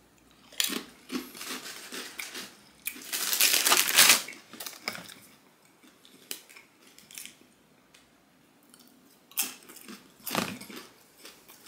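Fast-food wrapping and containers handled close to the microphone: irregular crinkling and rustling, with the longest and loudest rustle about three to four seconds in and shorter bursts near the start and near the end.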